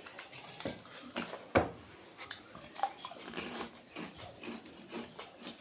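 Close-up eating sounds: chewing and lip smacking, with scattered small clicks and one sharper click about a second and a half in.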